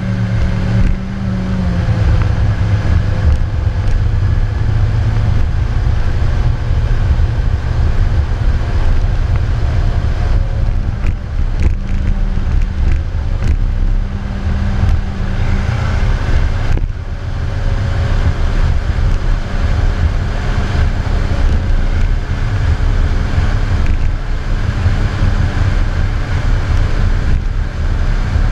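Diesel engine of a heavy earthmoving machine running loud and steady as it pushes through a stockpile, its pitch rising and falling a little with the load, with some wind on the microphone.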